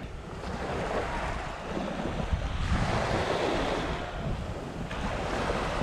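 Small waves washing up a sandy beach, one wash swelling and falling back about three seconds in, with wind rumbling on the microphone.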